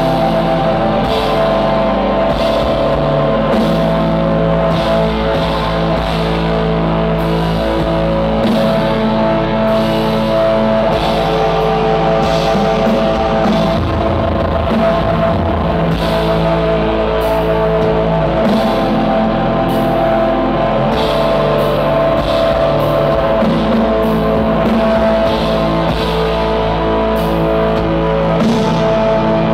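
Black metal band playing live at full volume: distorted electric guitars hold long chords that change every few seconds over steady drums and cymbals.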